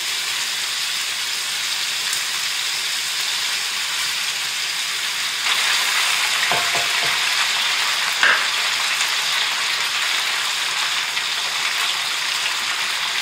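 Bacon and sliced potatoes frying in a cast-iron pan: a steady sizzle that grows louder about five and a half seconds in. In the middle, a spatula scrapes and knocks against the pan a few times.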